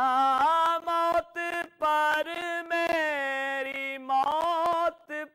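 Unaccompanied male voice singing a naat in long, wordless held notes that slide and waver in pitch. There are brief pauses for breath about a second in and again near the end.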